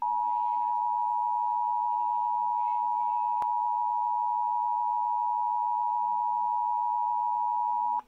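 Emergency Alert System two-tone attention signal, a steady two-note tone held for about eight seconds and then cut off. It announces a National Weather Service severe thunderstorm warning.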